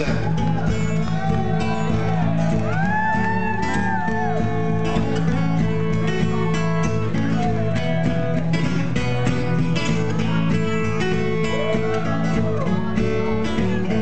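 Live acoustic band playing an instrumental break. Plucked acoustic guitar runs over a steady low bass line, with a few notes that bend up and down in the middle and again near the end.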